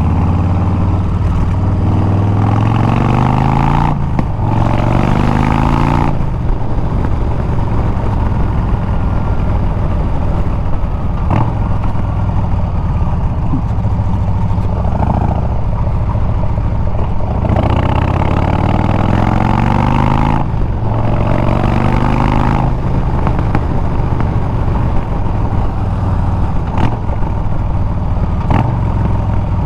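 Harley-Davidson Milwaukee-Eight 114 V-twin running through Bassani straight pipes under way. The engine pitch climbs and drops back at each upshift twice near the start, holds steady while cruising, then climbs through two more upshifts about two-thirds of the way through before settling again.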